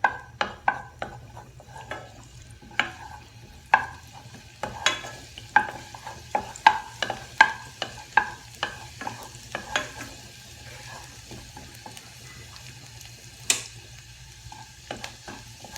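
Spoon stirring crushed garlic frying in a little oil in a pan: repeated sharp clicks and scrapes of the spoon against the pan over a faint sizzle. The clicks come about one or two a second, thin out after about ten seconds, and one sharp knock comes near the end.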